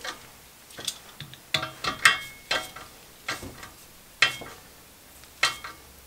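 Sharp metallic clinks and taps, about eight, irregularly spaced, some ringing briefly: a hand wrench working a bolt on the steel frame of a ring roller.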